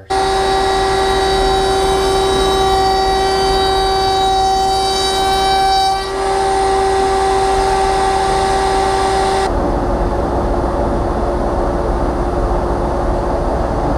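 Table-mounted router running at full speed with a back-cutting bit, a loud steady high whine that starts abruptly, while a sample raised panel's edge is cut to fit a quarter-inch groove. About nine and a half seconds in the whine thins and a rougher noise takes over.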